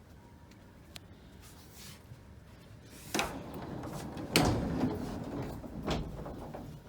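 A few clunks and a rumbling slide: a sharp knock about three seconds in, the loudest bang about a second later followed by a rumble, and another knock near the end.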